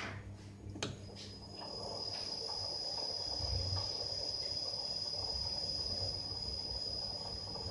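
Bridgeport EZ Path S CNC lathe starting up: two clicks, then from about a second in a steady high-pitched whine as the spindle and three-jaw chuck come up to speed and run.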